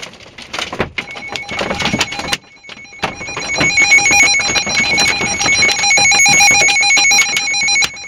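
NOAA weather radio sounding its alert tone for a severe thunderstorm warning: a shrill electronic tone that sounds briefly about a second in and then runs steadily from about three seconds. Hail and rain patter on the car throughout.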